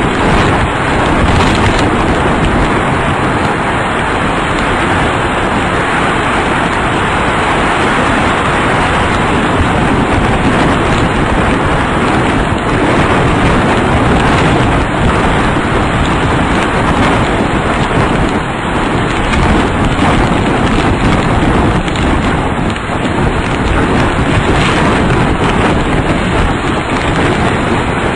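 Wind and rain from a close F3 tornado hitting a ground-level probe camera: a loud, steady rushing noise.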